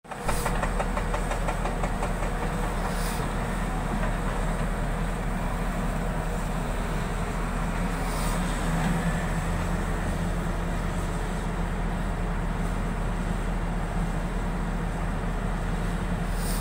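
Volvo crawler excavator's diesel engine running steadily under load while the machine digs, lifts its bucket and swings.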